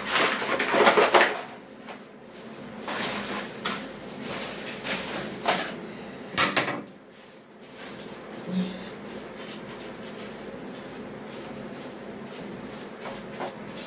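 Broken masonry rubble being scraped and gathered up by hand in several noisy bursts, strongest about a second in and again at about six and a half seconds. After that only a steady low background remains.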